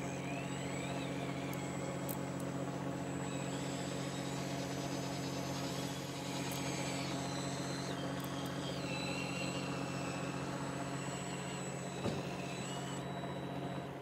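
Fishing boat's machinery running steadily, a constant low hum, with a faint higher whine that shifts in pitch. A single knock about twelve seconds in.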